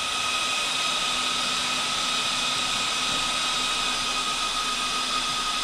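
Quad-pack of small motor cooling fans on an RC monster truck running flat out: a steady rush of air with a constant high whine.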